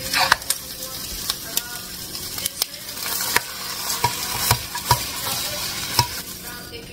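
A knife scraping and tapping against a hot nonstick frying pan as an omelet is pushed out onto a plate, a series of irregular clicks and scrapes over a steady sizzling hiss from the hot pan.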